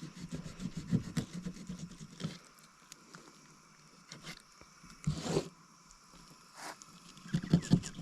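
Knife scoring crosshatch cuts into the skin of a whole China rockfish on a cutting board: irregular scraping and tapping strokes, with a longer scrape about five seconds in and a quick run of knocks near the end.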